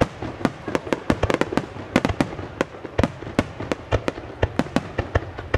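Fireworks going off in a rapid, irregular string of sharp bangs, several a second.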